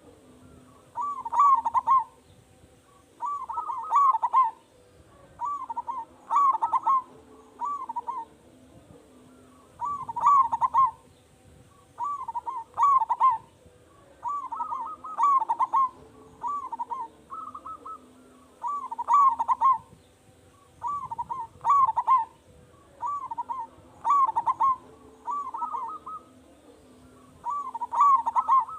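Zebra dove (perkutut) cooing in full song: short rolling coo phrases repeated every second or two, with brief pauses between them.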